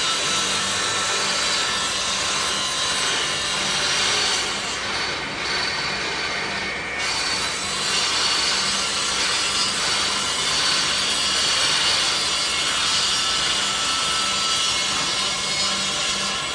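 CNC router's circular saw blade cutting through a wooden panel: a loud, steady high-pitched rasp, with a faint steady low hum from the machine underneath.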